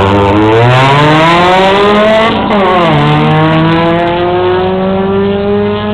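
Honda Civic's SOHC VTEC four-cylinder engine at full throttle in a drag launch, its pitch climbing steadily, dropping sharply about two and a half seconds in at an upshift, then climbing again through the next gear.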